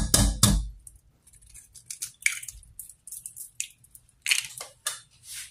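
Eggs being cracked against a bowl and broken open: a few sharp knocks right at the start, then scattered light crackles and taps.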